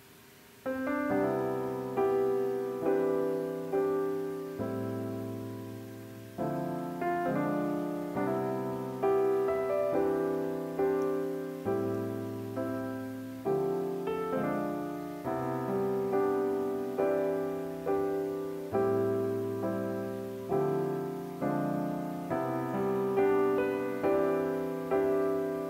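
Background music on solo piano: gentle notes and chords struck about once a second, each fading before the next, starting just under a second in.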